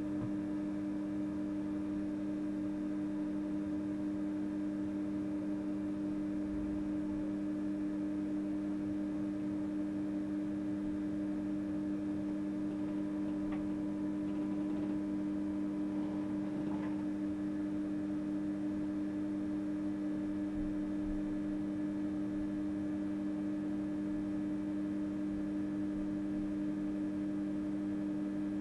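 Steady electrical hum inside the cab of an RhB ABe 4/4 electric railcar standing still, with two strong low constant tones; a few faint ticks come about halfway through.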